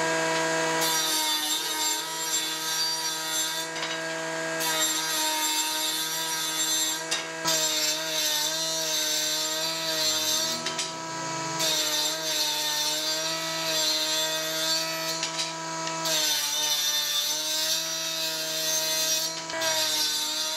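Table saw of a combination woodworking machine running with a steady motor whine while boards are ripped lengthwise. Each cut adds a hissing rasp of the blade through the wood, and there are several cuts with short lulls between them. The whine sags slightly in pitch when the blade is under load.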